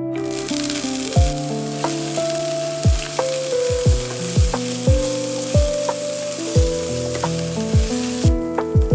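Food sizzling and frying in hot oil in a pan, a steady hiss that cuts off shortly before the end.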